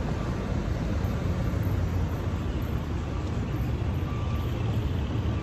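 Steady low rumble of road traffic on a busy city street.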